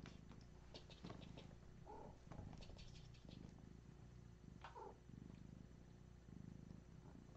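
Domestic cat purring, faint, in a low rise-and-fall rhythm, with two short high squeaks about two seconds and about five seconds in.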